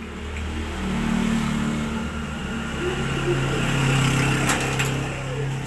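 Engine of a passing motor vehicle, a steady tone that drops in pitch about halfway through, over a low hum. There is a sharp click near the end.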